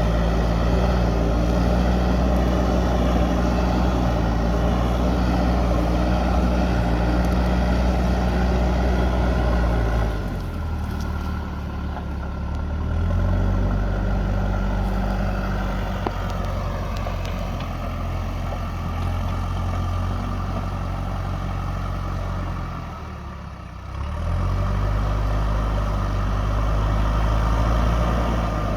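JCB backhoe loader's diesel engine running and working. It runs high for the first third, drops in revs, climbs back, and dips briefly once more near the end.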